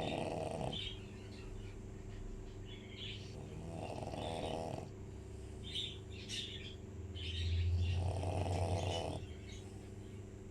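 French bulldog snoring in slow, regular breaths: three snores about four seconds apart, the last one longest and loudest. Snoring like this is typical of the breed's short, flat-faced airway.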